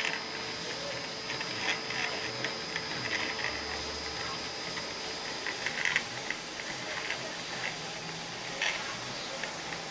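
Homemade Arduino Mega-controlled CNC machine running, with a steady high whine that fades about halfway and irregular clicks and scrapes from its moving parts.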